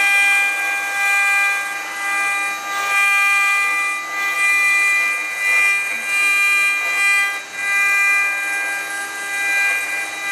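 CNC router spindle with a small end mill cutting a metal relief under flood coolant: a steady high-pitched whine of several even tones over cutting noise, swelling and easing every second or so as the cutter works through the metal.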